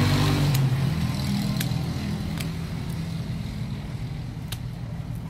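A motor vehicle engine hums and fades away as it passes. A few sharp clicks come through it, from pruning shears cutting into a root ball.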